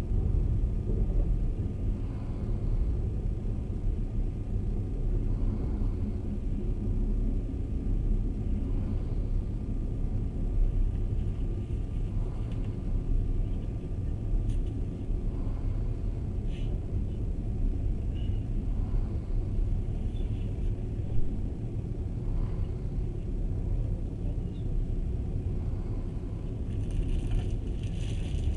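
Passenger train running at speed, heard from inside the carriage: a steady low rumble of wheels on the rails. A brighter hiss joins near the end.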